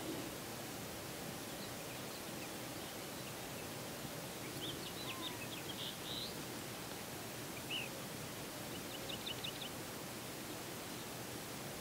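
Scattered faint bird chirps and short calls, among them a quick run of about six notes late on, over a steady background hiss.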